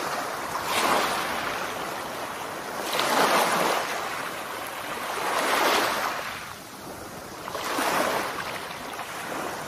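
Sea surf washing onto a beach, a broad hiss that swells and fades four times, about every two and a half seconds.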